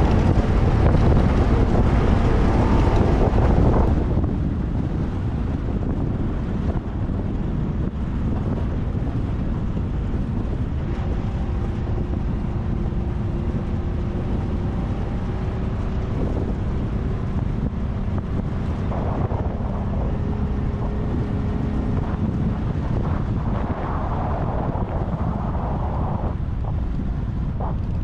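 A vehicle driving, with wind buffeting the microphone; the wind noise is heavy for the first four seconds, then drops to a steadier engine and road drone with a faint, slowly rising engine tone.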